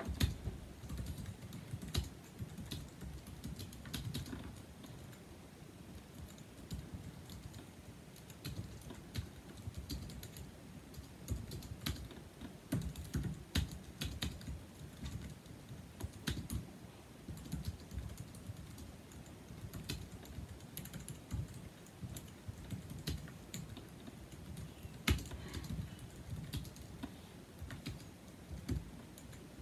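Typing on a 2007 Apple aluminum keyboard with numeric keypad (A1243): its low-profile scissor-switch keys click in a steady, irregular stream, with now and then a louder stroke.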